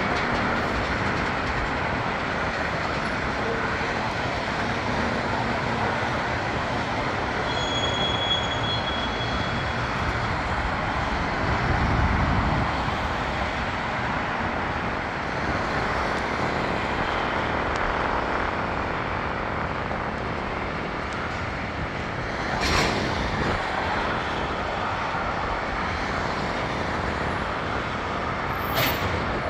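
Union Pacific freight train's double-stack container cars rolling past, a steady rumble of steel wheels on rail. A brief thin high whine comes about eight seconds in, and one sharp knock about 23 seconds in.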